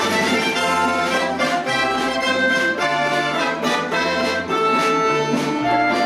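Russian folk-instrument orchestra of domras, balalaikas and button accordion playing together, plucked strings over a bass line that changes every second or so.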